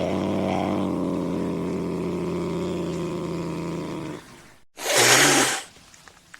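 An angry cat growling low and steadily for about four seconds. The growl breaks off, and about five seconds in the cat gives one loud, short hiss.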